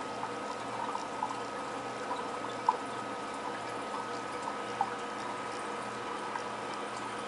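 Water trickling and splashing in a BioCube 29 nano reef aquarium's filter and circulation system, over a steady hum from its pumps, with a few faint pops.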